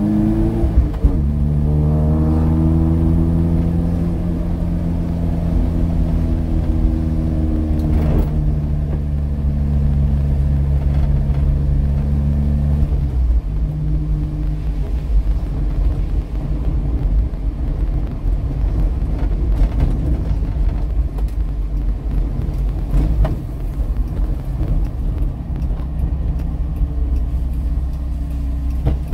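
Chevrolet Chevette's four-cylinder engine heard from inside the cabin under way. It dips about a second in, then climbs in pitch and holds a steady drone. About 13 seconds in it eases off, leaving a low rumble with tyre noise on the wet road.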